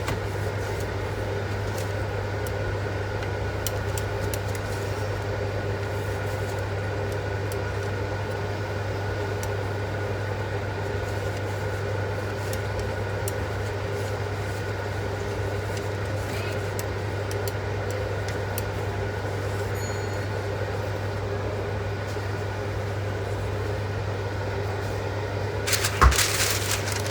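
Steady electric hum of a running kitchen appliance, with a few sharp clicks and knocks near the end.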